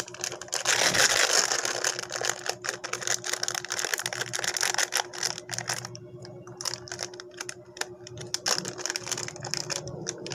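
Plastic packet crinkling and crackling as it is torn open and handled: a dense run of sharp crackles that thins out to scattered clicks about halfway through.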